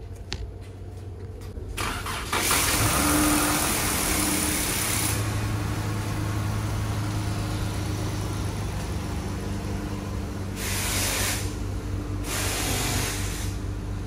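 Dodge Charger's 3.6-litre Pentastar V6 running at idle, a steady low hum with no lifter tick despite its 211,000 miles. A louder rush of noise comes in about two seconds in and lasts about three seconds, with two shorter rushes near the end.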